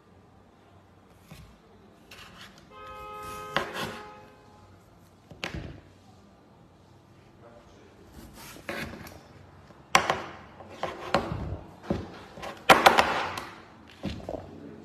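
A vegetable peeler scraping strips of peel off a cucumber in several quick strokes, starting about eight seconds in, the loudest near the end. A brief pitched tone sounds about three seconds in.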